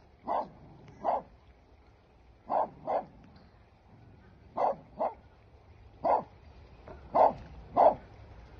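A dog barking repeatedly: about nine short barks, often in pairs, a second or two apart.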